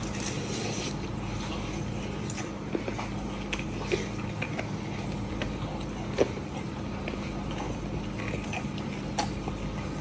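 Close-up eating sounds of chewing and tearing meat off a glazed pork rib, with a few sharp smacks or clicks scattered through, over a steady low hum.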